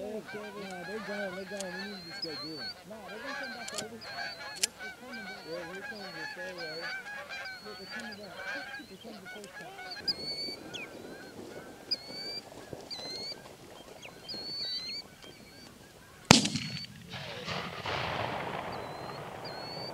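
A flock of Canada geese honking, many calls overlapping at first and thinning out after about ten seconds. A few sharp cracks come in the first five seconds, and one much louder bang about sixteen seconds in is followed by a few seconds of rustling noise.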